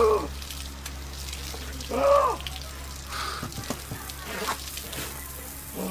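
Water pouring and splashing from a pipe and tap onto a person, with a short vocal exclamation at the start and another about two seconds in.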